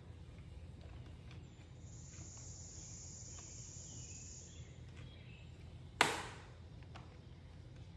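Low steady hum with a soft high hiss for about three seconds, then a single sharp snap about six seconds in that dies away quickly.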